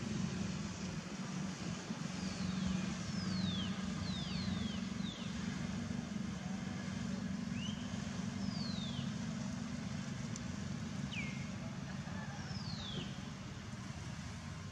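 A steady low engine-like rumble runs throughout. Over it come about ten short high whistled calls, each sliding downward in pitch, in small clusters a few seconds apart.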